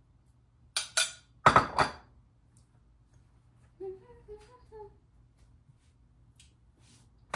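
Metal kitchenware clinking twice, then a loud clatter with a thud as a frying pan and utensils are set down on the stove. A few faint hummed notes follow a couple of seconds later, and one more light click near the end.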